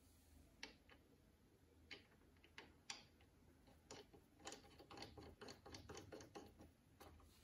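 Faint scattered metallic clicks and ticks as a threaded metal end cap is fitted and screwed by hand into a brass hammer head. The clicks are sparse at first, then come quickly for a couple of seconds about halfway through.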